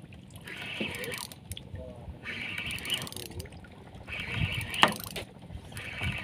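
Spinning fishing reel being wound in short bursts, one about every second and a half, as a hooked fish is reeled up. A single sharp knock about five seconds in.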